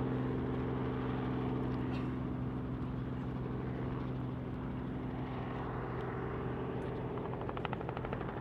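The Fokker Dr.I triplane's original 1917 Oberursel rotary engine running at low power as the plane taxis, a steady drone. A quick, even rattle of pulses comes in near the end.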